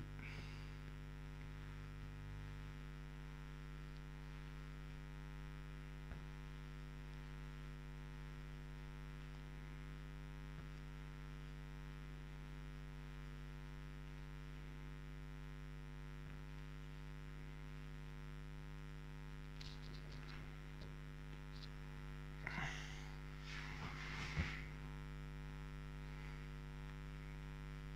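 Steady electrical mains hum, with a few faint, short rustles late on.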